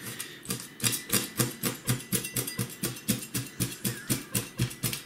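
A large kitchen knife chopping quick, even cuts crosswise through a crucian carp's flesh and fine bones down to the backbone, each stroke tapping the plastic cutting board, about five cuts a second.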